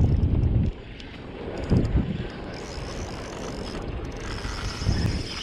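Wind buffeting the microphone, with heavy low thumps in the first moment and again briefly twice later, over a steady rushing noise on an open boat at sea.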